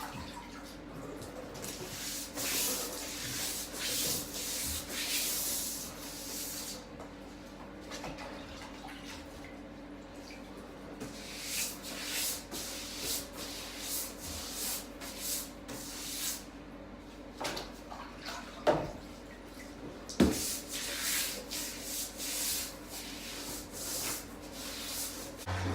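Sandpaper being rubbed by hand over a surface in repeated uneven strokes, with two sharp knocks about three quarters of the way through.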